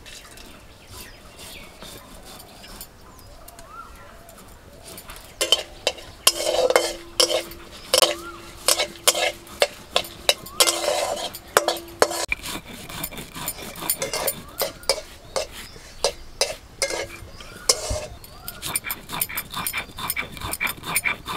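A spatula stirring and scraping in a metal karai where panch phoron, bay leaves and dried red chillies are frying in mustard oil. A soft sizzle comes first; about five seconds in, a run of sharp clicks and scrapes of the spatula against the pan begins, then turns into quicker, lighter taps.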